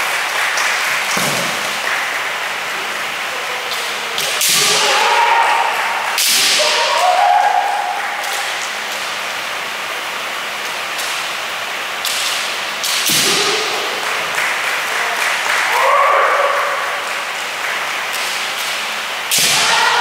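Kendo sparring: bamboo shinai striking armour in sharp cracks, a handful of them a few seconds apart, each with loud kiai shouts, echoing in a large hall.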